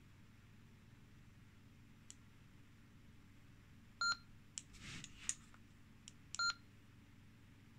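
Yaesu FT1XD handheld radio's key beeps: two short single-pitch beeps, about four seconds in and again about two and a half seconds later, with button clicks and a brief handling rustle between them as its menu is worked.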